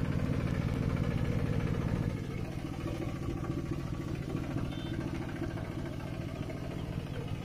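Mini tractor's engine running steadily with a fast, even chug, easing off slightly about two seconds in.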